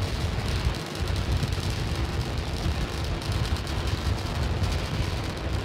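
Starship SN8's Raptor rocket engines burning during powered ascent: a steady deep rumble with a dense crackle running through it.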